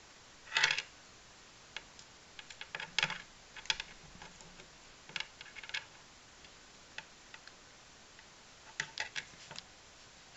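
Light irregular clicks and taps in small clusters as a thin plastic stick knocks and rattles against a door edge while a cat bats at it through the gap. The loudest cluster comes about half a second in.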